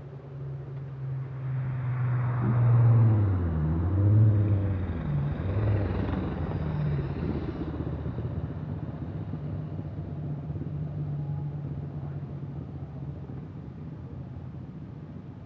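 Motorcycles riding past on the road, engine pitch rising and falling, loudest about three to four seconds in, then fading slowly as they ride away.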